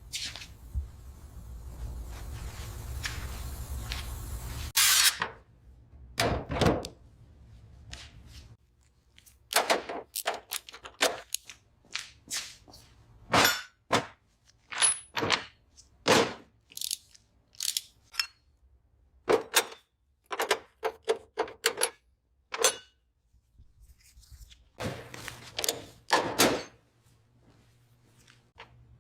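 An irregular run of sharp knocks and clicks, some with a short ring, coming several a second in places. A steady low hum stops about five seconds in.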